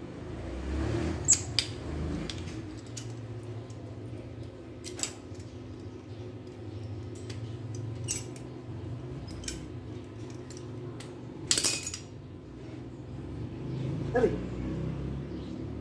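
Scattered metallic clinks and knocks of tools and parts being handled over a steady low hum, with one louder knock about eleven and a half seconds in.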